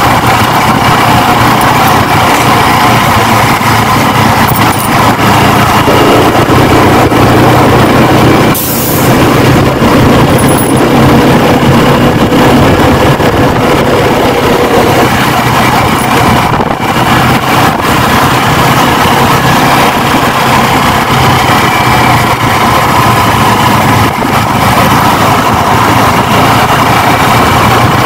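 Yamaha R15's single-cylinder engine running steadily under way, with road and wind noise on the phone microphone. A bus passes close alongside around the middle.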